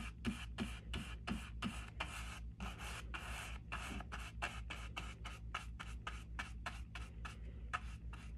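Paintbrush scrubbing white paint onto a stretched canvas in quick back-and-forth strokes, about four a second, each a short dry scratch against the canvas weave.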